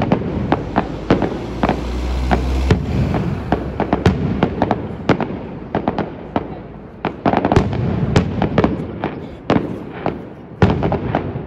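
Aerial fireworks display: a rapid, continuous string of bangs and crackles from shells bursting overhead, with a low rumble under the bangs in the first few seconds.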